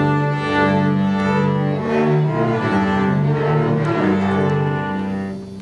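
Orchestra playing a slow phrase of long held low notes, bowed strings to the fore, that dies away near the end.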